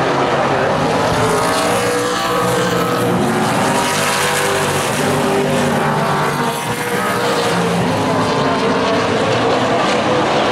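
A pack of Late Model stock cars racing on the oval, several V8 engines overlapping, their pitches rising and falling as the cars pass and go through the turns.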